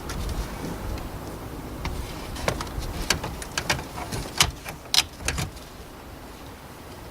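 A run of sharp clicks and light knocks, about a dozen spread over a few seconds, from the radio unit and plastic dashboard trim being handled and pushed into place in a car dashboard.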